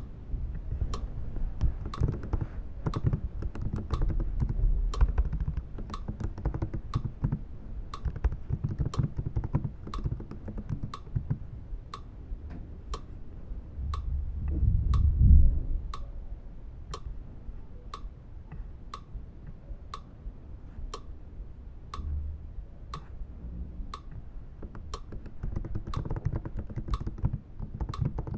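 Fingers typing on a computer keyboard, keys struck over and over in uneven runs, with a louder low thump a little past halfway. A sharp, steady tick about twice a second runs through it.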